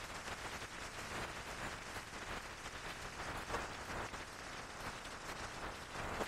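Road and wind noise inside a moving car: a steady rushing hiss with a faint crackle.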